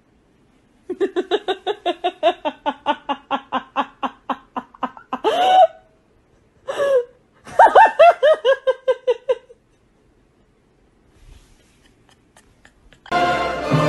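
A woman laughing hard in long fits of rapid, pitched "ha" pulses, with a high squeal in the middle. Near the end, orchestral music with timpani starts.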